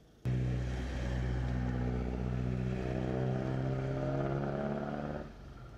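A motor vehicle's engine running at a steady pitch that rises slightly. It starts abruptly about a quarter second in and drops away about five seconds in.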